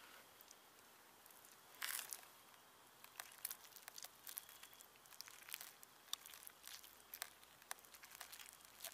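Faint crinkling and clicking of a plastic zip-top bag being squeezed and handled, with a louder rustle about two seconds in.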